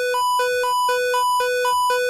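Electronic emergency alert alarm: two buzzy tones, a low one and one an octave higher, alternating steadily about twice a second.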